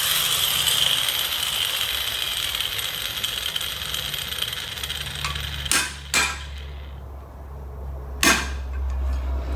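Angle grinder whining as it spins down, fading out over the first several seconds, then three sharp metal-on-metal hammer blows on a chisel driven against the cut rear axle bearing to crack it off the shaft.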